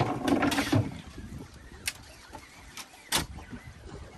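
Two sharp, short knocks a little over a second apart, over low background noise, after a brief muffled sound at the start.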